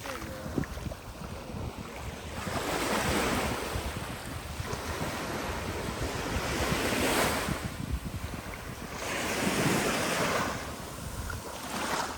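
Sea waves breaking and washing up the beach, surging and falling back every few seconds, with wind buffeting the microphone.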